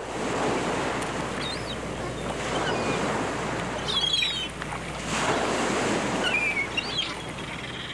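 Sea surf breaking and washing in swells, with wind, and a few short bird calls over it.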